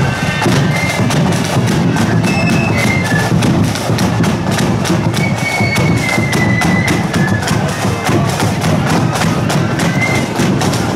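Marching flute band playing a tune: flutes carry the high melody over rapid side-drum strokes and the beat of a bass drum.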